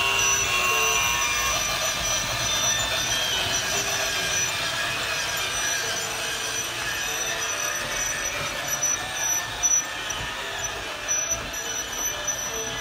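A battery-powered toy Christmas train runs on its plastic track, with a steady whirring rattle from its small motor and wheels. A simple tinkly tune from the musical village pieces plays under it at the start and again near the end. A few sharp clicks come near the end.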